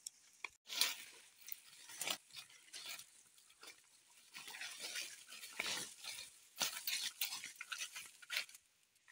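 Footsteps crunching and rustling through dry leaves, twigs and brush on a forest path: irregular crackles and swishes with no steady rhythm.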